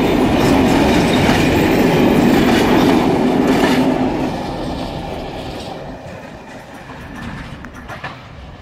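Container freight wagons rolling past on the rails, the wheels clacking over rail joints. The last wagon passes about four seconds in, and the sound then fades steadily as the train moves away.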